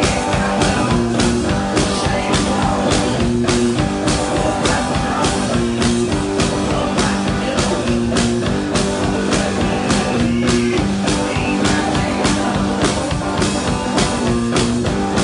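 One-man band playing rock live: guitar chords over a steady drum beat on bass drum, snare and cymbal, all played by one performer.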